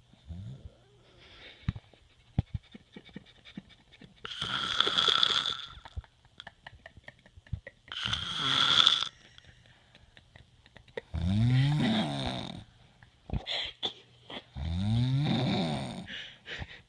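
Snoring: four loud snores about three and a half seconds apart, with softer snuffles between. The first two are hissy and rasping; the last two are longer, over a second each, with a throaty pitch that shifts during each snore.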